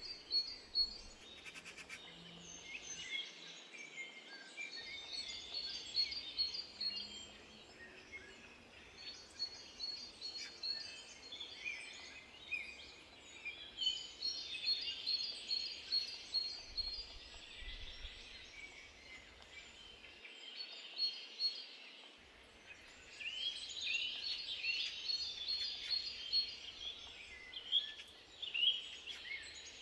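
Garden birdsong: several small songbirds chirping and singing, with rapid runs of repeated high trilling notes. The singing grows busier near the end.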